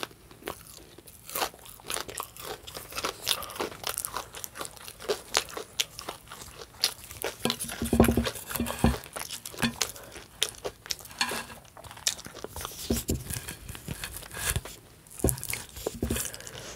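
A person chewing and crunching breakfast food close to the microphone, with many small wet clicks and crackles, and a couple of low bumps about halfway through.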